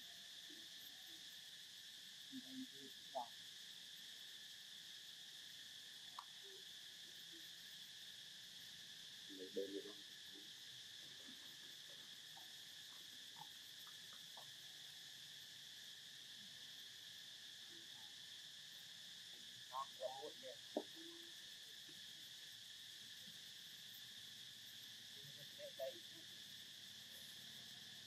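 Faint, steady insect chorus, a high even drone in two pitches, with a few brief faint sounds about four times, the clearest around two-thirds of the way through.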